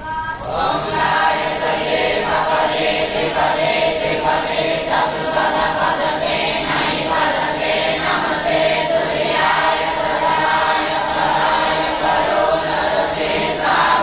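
A large group of young boys chanting Vedic mantras in unison, their many voices coming in together about half a second in and carrying on steadily.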